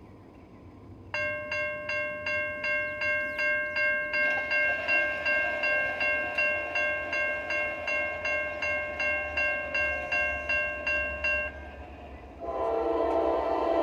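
Electronic railroad grade-crossing warning bell ringing in quick, regular strikes, about two to three a second, for about ten seconds before cutting off. Near the end an approaching locomotive's air horn starts sounding a steady chord.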